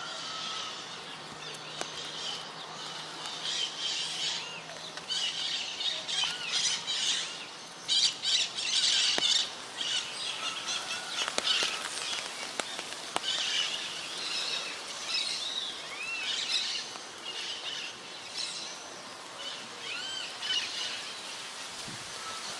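Many birds chirping and calling at once, short overlapping chirps and rising-falling calls, busiest and loudest about eight to ten seconds in.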